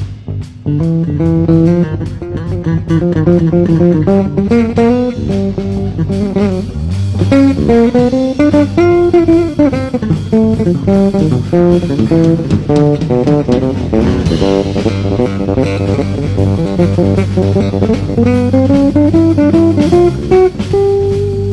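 Electric bass guitar solo: quick runs of notes climbing and falling over sustained low notes, ending on a rising run that settles on a held note near the end.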